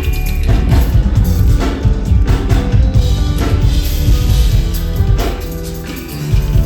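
Loud live band music with no singing: drum kit and heavy bass driving an instrumental passage. The level sags briefly about six seconds in, then the drums hit hard again.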